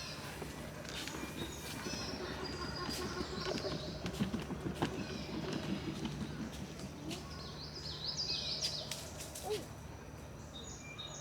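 Several small birds chirping in short high phrases that come and go, over scattered sharp clicks and rustles close by and a steady low hum.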